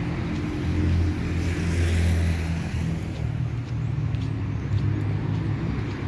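City street traffic: a steady low rumble of cars running on a nearby road.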